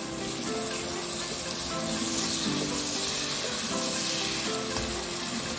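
Diced onion and pepper sizzling in melted lard as a wooden spoon stirs them in the pot. The sizzle swells about two seconds in and eases near the end. Background music plays throughout.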